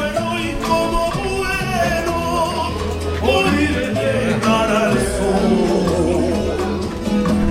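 Song with a singing voice over a steady bass line.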